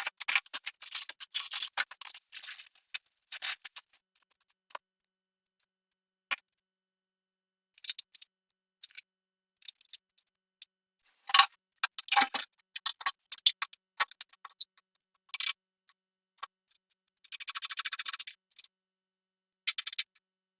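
Scattered small clicks, clinks and short rustling scrapes from handling a bathroom faucet and its fittings while mounting it on a sink top, with a longer rustle near the end.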